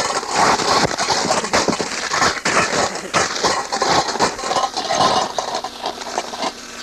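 A cheap frisbee being crunched and torn apart: dense, irregular crackling and crunching, easing off near the end.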